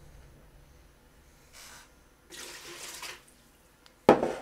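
Water sloshing in a ceramic mug as it is gripped and moved, heard as short hissy rushes of noise, followed by a sudden loud knock near the end.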